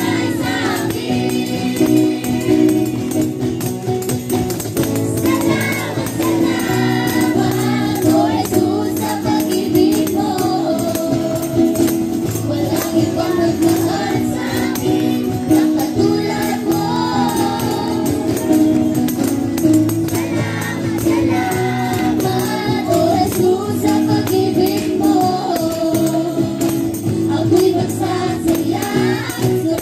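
A live worship band played through a PA sound system: several voices singing together into microphones over acoustic guitar and keyboard, with a steady beat.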